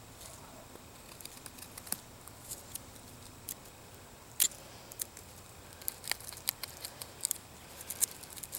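Faint scattered snicks and clicks of a Victorinox Trekker pocket-knife blade cutting a notch into a piece of wood, with a sharper click about four and a half seconds in.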